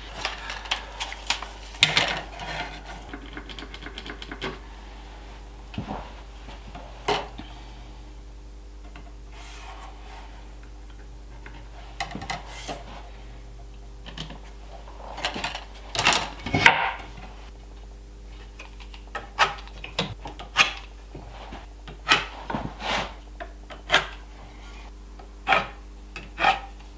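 Oak pieces and tools handled on a workbench while measuring and marking: scattered sharp knocks and clicks with short stretches of rubbing and scraping, over a faint steady hum.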